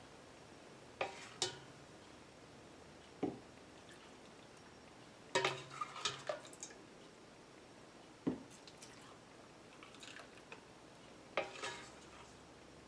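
Light clinks and knocks of a metal spoon and a pot against glass jars, about half a dozen short strikes with a small cluster midway, as hot brine is poured slowly into jars packed with cucumbers.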